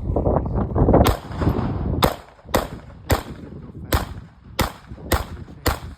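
Gunfire: about eight sharp shots about a second in, coming roughly every half second to a second, over a low rushing rumble that fades after the first two seconds.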